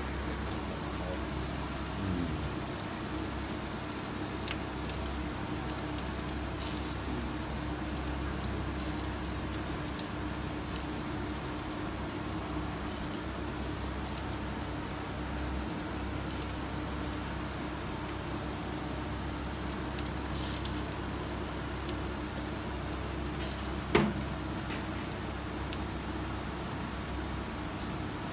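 Commercial gas-fired yakitori grill burning with lump charcoal on it: a steady hiss with a low hum, dotted with small crackles and clicks, and one sharper knock near the end.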